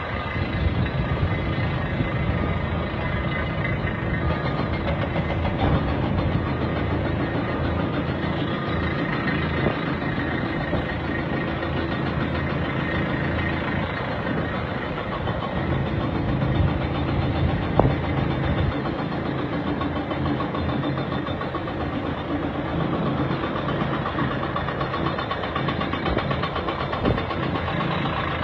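Diesel engine of heavy construction machinery running steadily, with a single sharp knock about 18 seconds in.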